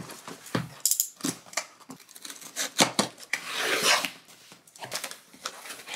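Packing tape on a corrugated cardboard box being slit open with a small blade, a run of short scrapes and clicks, then the flaps pulled apart with a longer tearing, rasping sound about three and a half seconds in.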